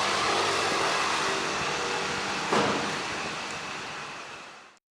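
Steady rushing background noise with a brief louder swish about two and a half seconds in. It fades away over the last second and a half and ends in silence.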